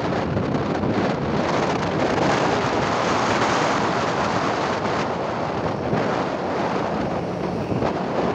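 Steady wind noise on the microphone of a moving motorbike, over the bike's engine and tyres running on the road.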